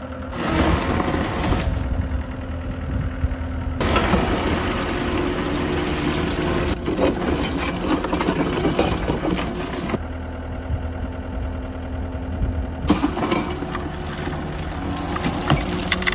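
2020 John Deere 333G tracked skid steer loader's diesel engine running, with a steady low drone and clatter. The sound changes abruptly a few times, at about 2, 4, 10 and 13 seconds in.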